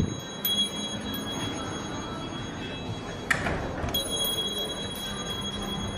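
Quiet shop-interior room tone: a faint murmur with a thin, steady high-pitched whine, and a single sharp click a little over three seconds in.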